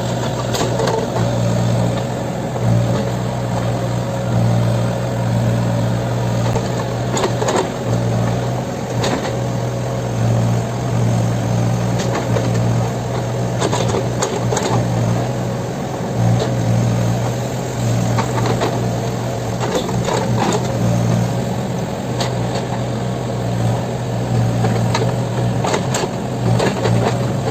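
Backhoe loader's diesel engine running steadily, with scattered sharp knocks through it.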